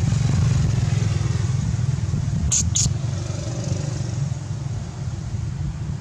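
A motorcycle engine running with a steady low rumble. Two short high-pitched chirps come about two and a half seconds in.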